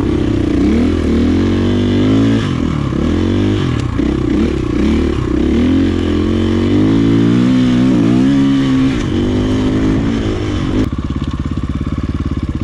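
Single-cylinder four-stroke KTM dirt bike engine revving up and down repeatedly, then settling to a steady idle about 11 seconds in.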